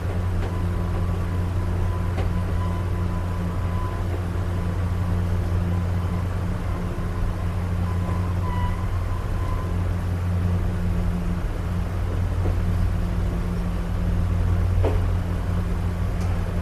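Railroad passenger coach in motion, heard from its open vestibule: a steady low rumble from the wheels and running gear, with a couple of sharp knocks, about two seconds in and near the end.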